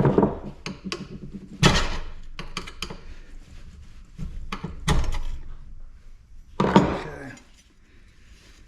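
Metal scrap parts being handled and set down hard: a series of clanks and knocks, the loudest about a second and a half in and again near seven seconds, the later one ringing briefly.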